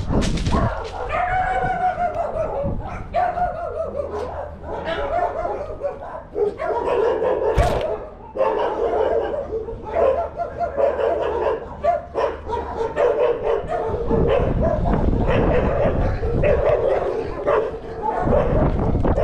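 Dogs barking and yelping over and over, with a low rumble joining in about fourteen seconds in.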